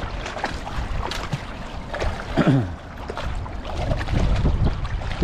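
Wind rumbling on the microphone out on the water, with scattered small knocks and a short falling vocal sound about halfway through.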